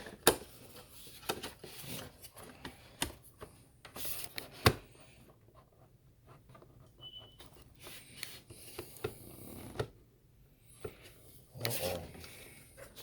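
Hands handling small hardware while fitting an SSD into an MPC Live 2 sampler: scattered sharp clicks and taps with rubbing and scraping in between, the loudest clicks about a third of a second in and near five seconds in.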